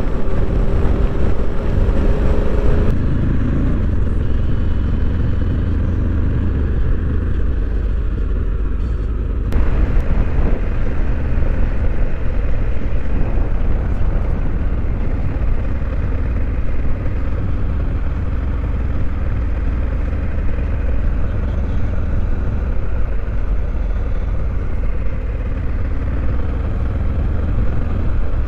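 Honda Africa Twin CRF1100's 1084 cc parallel-twin engine running steadily while the bike is ridden, heard as a continuous low rumble with road and wind noise. The sound shifts abruptly about three seconds and ten seconds in.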